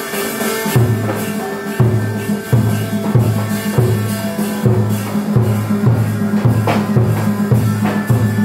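Tuồng (Vietnamese classical opera) ensemble music: a low drum beats a regular pulse that gradually picks up speed, over steady held instrumental tones, with sharp strikes of smaller percussion on top.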